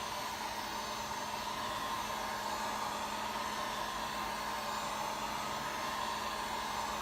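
A Harbor Freight heat gun on its low setting, running steadily: a rush of blown air with a steady mid-pitched whine from its fan motor.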